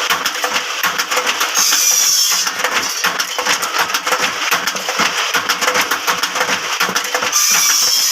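Bamboo satay-skewer making machine running, with a rapid continuous clattering. Twice, about two seconds in and near the end, a brief higher hiss with a falling whistle joins in.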